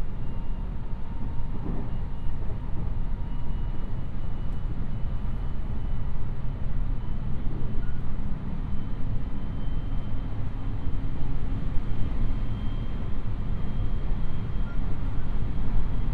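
Inside a JR West 223 series electric train running along the line: a steady rumble of wheels on track, with a faint high whine that slowly rises in pitch.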